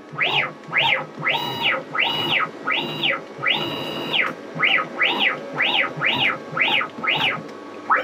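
Y-axis NEMA 23 stepper motors of a Gatton DIY CNC router, driven by DM542T drivers on a 48-volt supply, whining through about a dozen short jogs in quick succession: each a pitched whine that rises as the axis accelerates, holds at full speed and falls as it stops. One jog, about halfway through, holds its top pitch a little longer.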